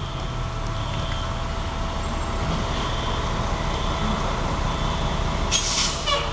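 Fire truck engine running with a steady low rumble, and a short sharp hiss of air brakes about five and a half seconds in.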